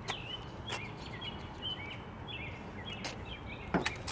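Songbirds chirping over and over in short, quick notes that slide up and down. A few sharp clicks or taps sound over them, the loudest a little before the end.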